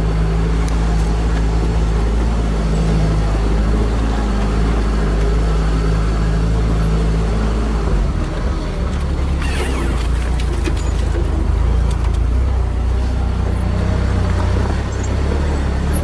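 Off-road Jeep engine running at low speed, heard from inside the open cab while crawling a rocky trail: a steady drone whose pitch drops about eight seconds in. A brief scrape comes about nine and a half seconds in.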